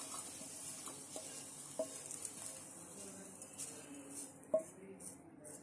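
Wooden spatula scraping fried vegetable stuffing out of a non-stick pan onto a steel plate: a few light knocks that ring briefly, over a faint sizzle from the just-switched-off pan that fades away.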